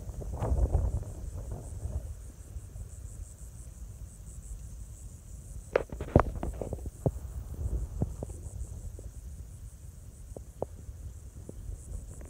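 Insects trilling steadily in a high, finely pulsing chorus, over a low rumble. A few sharp clicks and knocks stand out, the loudest about six seconds in.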